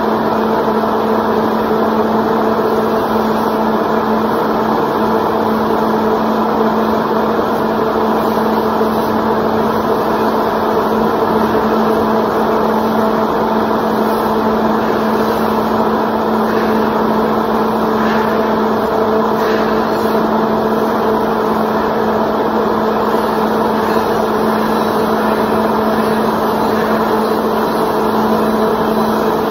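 Handheld angle grinder running steadily against a steel plate edge, a constant drone with a fixed low hum under the grinding noise.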